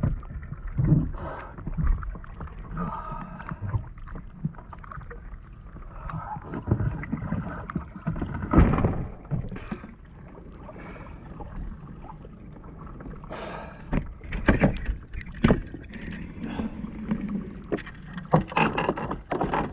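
Water splashing and sloshing around a fishing kayak, with irregular knocks and clatter against the hull and gear. There is a loud knock about halfway through and a burst of sharp knocks about three-quarters of the way in.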